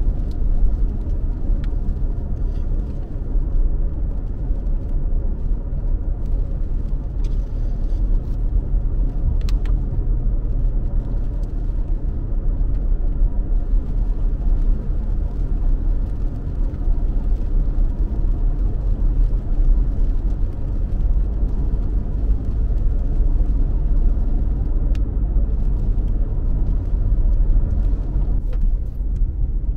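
Steady low rumble of a car driving on a wet road, heard from inside the cabin, with a few faint ticks scattered through it.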